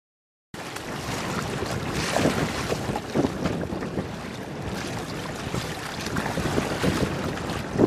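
Wind buffeting the microphone over splashing, rushing water. It starts abruptly about half a second in and surges irregularly.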